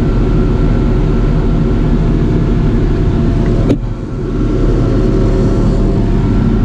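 Engine of a tree-cutting logging machine running steadily, heard from inside its cab. A single sharp click comes a little after three and a half seconds, followed by a brief dip in the engine sound.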